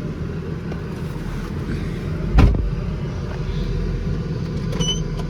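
Inside a moving car: a steady low rumble of the engine and road, with the air conditioning blowing at full fan. A single thump about halfway through, and a brief high-pitched chirp near the end.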